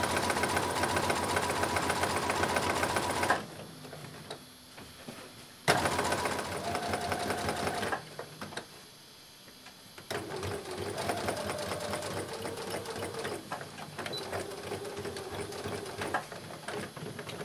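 Electric sewing machine straight-stitching a hem, its needle strokes running in a fast, even rhythm. It runs for about three seconds, stops, sews briefly again, pauses, then runs longer and more quietly near the end.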